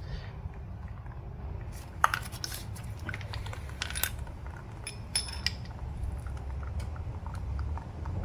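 Scattered light metallic clicks and clinks as metal parts of a dismantled automatic transmission are handled and knocked against each other, most of them between about two and five and a half seconds in, over a steady low hum.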